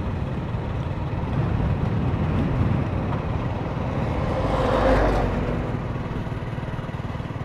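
Steady engine and road noise of a vehicle on the move, swelling louder for about a second around five seconds in.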